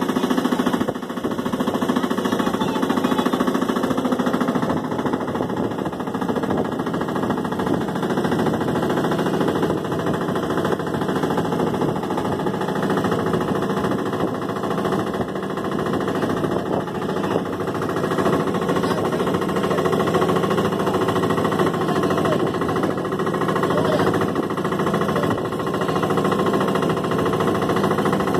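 Small fishing boat's engine running steadily while the boat is underway.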